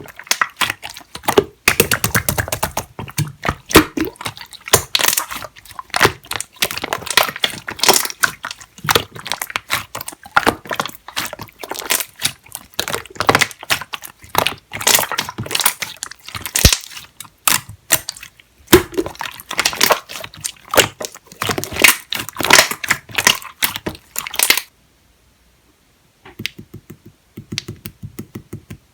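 Clear slime being pressed and squished by hand, a dense run of sticky pops and crackles that stops abruptly about twenty-five seconds in, followed by a few fainter clicks near the end.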